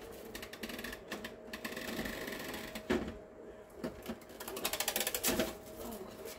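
Plastic cling wrap being pulled off the roll and handled: two spells of rapid crackling, each about a second long, with a single knock between them.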